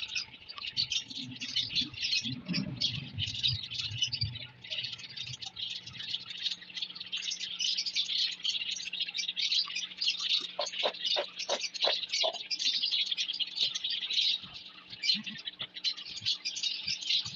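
A flock of small pet parrots, budgerigars and lovebirds, chattering and chirping without a break. Some low rustling in the first few seconds, and a quick run of light clicks about ten seconds in.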